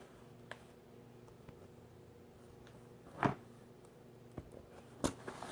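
Quiet room tone with a few small handling sounds from the slime package: light ticks, and two short rustles or knocks about three and five seconds in, the first the loudest.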